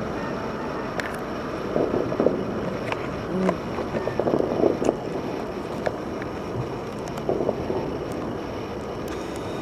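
Fireworks bursting: irregular booms, some in quick clusters, and sharp pops over a steady background rumble.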